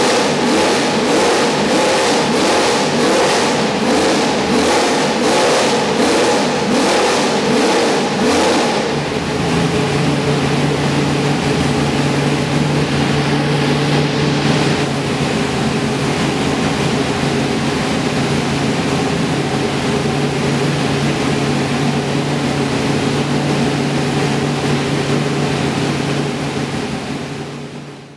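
Race car engine blipped rapidly, about two revs a second, rising and falling in pitch for the first nine seconds or so. It then settles into steady running and fades out at the end.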